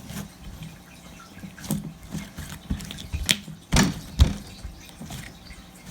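Hands pressing and flattening soft Elmer's slime, giving scattered wet clicks and pops, with a few louder pops in the middle.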